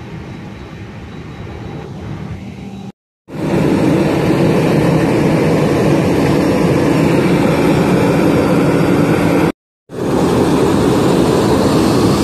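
Airbus A321 airliner taxiing close by, its jet engines giving a loud steady rush. It is preceded by a few seconds of quieter steady cabin hum, and the sound breaks off abruptly twice.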